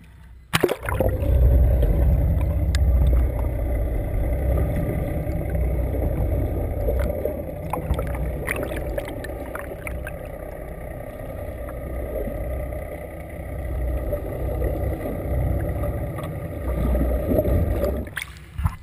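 Muffled underwater sound through an action camera held below the surface beside a fishing boat: a dense low rumble of water and the boat's outboard motors, with a few sharp knocks. It starts suddenly as the camera goes under, about half a second in, and cuts off just before the end as it comes back out.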